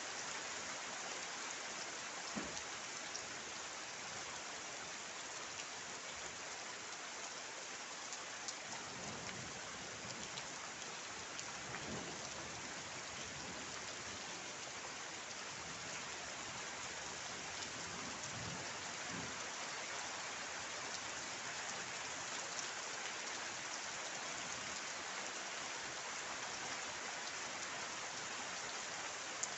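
Steady rain falling, an even hiss of drops, with a few faint low rumbles near the middle.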